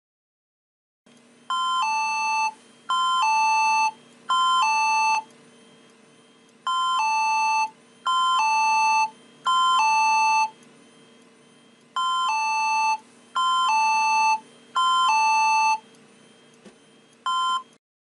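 Wheelock ET-1010 fire alarm speaker/strobe sounding the 'Code Red' temporal hi-lo hospital tone: each burst is a high note dropping to a lower one, in groups of three with a pause between groups, repeated three times, with a fourth group cut off just after it starts near the end. A faint steady hum sits under the tone.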